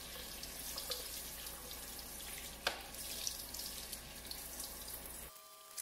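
Kitchen faucet sprayer running a light spray of water over a computer logic board and into the sink, rinsing off the vinegar used to clean corrosion from it. There is a sharp click a little before the halfway point, and the water sound breaks off near the end.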